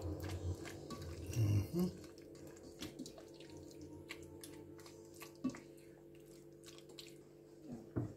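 Diced chicken and green curry paste stirred in a non-stick pot with a silicone spoon: scattered wet clicks and pops over a steady hum, with a few soft low thuds in the first couple of seconds. A small knock near the end as the glass lid goes onto the pot.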